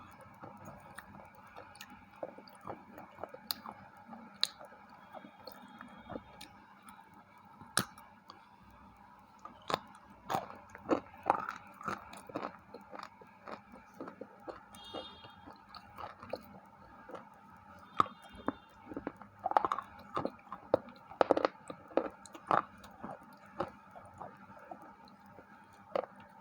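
Close-miked chewing and biting of a white KitKat chocolate-coated wafer bar, with irregular sharp crunches that come thicker and louder in the middle stretch, over a faint steady hum.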